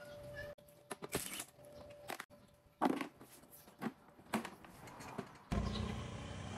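Scattered clicks and hollow plastic knocks as a scooter's underseat storage bin is unscrewed and lifted out of the frame. A steady low hum starts near the end.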